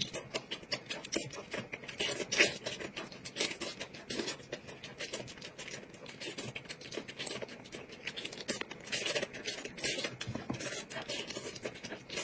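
Close-up eating sounds: a chicken drumstick being bitten and chewed, a steady run of many quick, irregular clicks and crackles.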